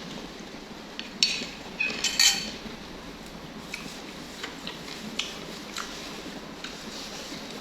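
Eating utensils clinking and tapping against a bowl of noodle soup, a few sharper clinks early on, then lighter scattered taps.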